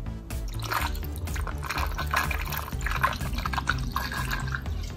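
Water poured from a plastic bottle into a funnel, splashing and dripping as it drains through the outboard's cooling passages.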